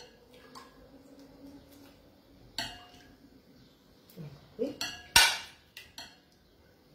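A metal spoon clinking against a ceramic bowl while scooping and drizzling an oily herb sauce: a few scattered sharp clinks, the loudest about five seconds in.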